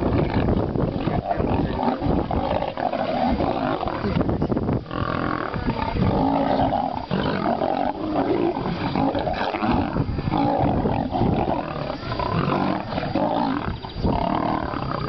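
Male lions fighting: a white lion and a tawny maned lion snarling and roaring at each other in loud, near-continuous outbursts.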